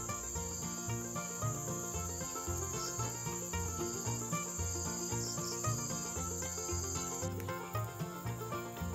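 Steady high-pitched drone of insects, crickets or cicadas, stepping slightly higher in pitch about seven seconds in. Underneath runs soft music with a pulsing low beat.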